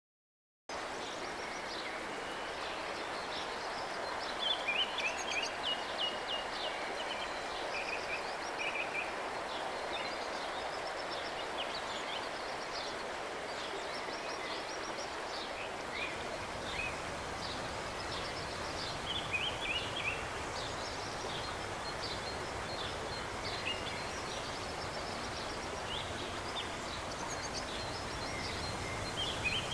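Steady rush of flowing river water with songbirds chirping and trilling again and again over it; the sound starts abruptly about a second in.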